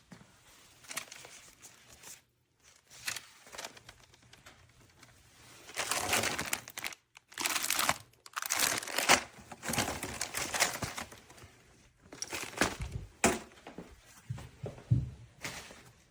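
Irregular crinkling and crumpling of something being handled, in bursts with a few sharper crackles, busiest in the middle.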